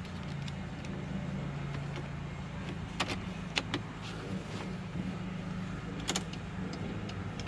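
A few sharp clicks inside a car as the driver settles in and puts the key into the ignition, over a steady low hum.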